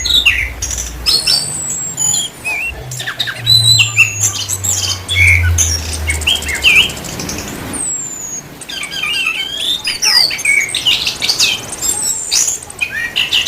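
Orange-headed thrush singing a varied song of whistled notes, quick falling sweeps and rapid trills, phrase after phrase with short gaps.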